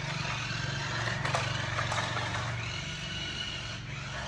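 Toy remote-control car's small electric motor and gears whirring steadily as its plastic wheels roll across a tile floor.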